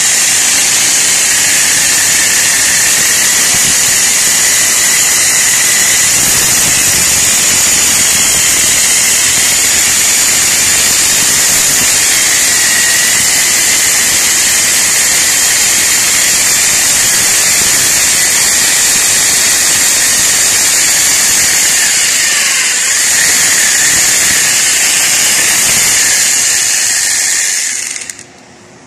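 Electric drill with a masonry bit boring into a cement wall, running steadily and loudly, then stopping suddenly near the end.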